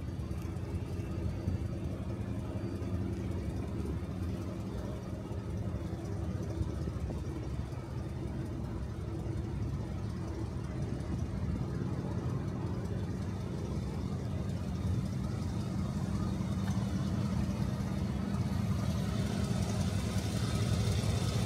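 1958 Cadillac Eldorado Brougham's 365 V8 idling steadily, growing louder near the end as the front of the car comes close.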